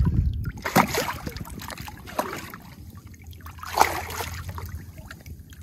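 Redfish thrashing in shallow water as it is held at the surface, a few short splashes with the biggest about four seconds in: the fish still has a little fight left.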